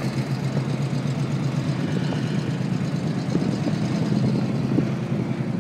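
Vehicle engine running at idle, a steady low rumble.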